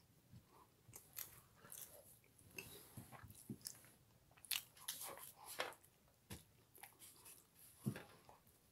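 Faint chewing and mouth noises of people eating buns straight off paper plates without hands, with scattered short smacks and clicks.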